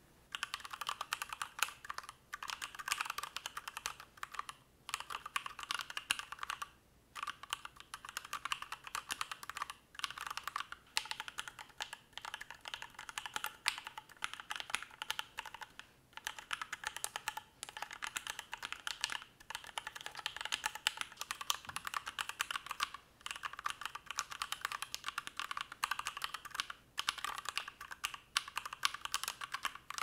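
Fast continuous typing on a Matrix Noah keyboard with Swagkeys Luminous switches, an aluminium plate and PBT keycaps: a dense run of keystroke clacks with brief pauses every few seconds. The switches are heard in turn both stock and lubed with Krytox 205g0 and filmed.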